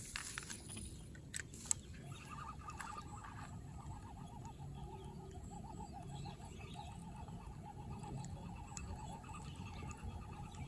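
An animal calling in a steady, fast-pulsing trill that starts about two seconds in, with a few sharp clicks before it.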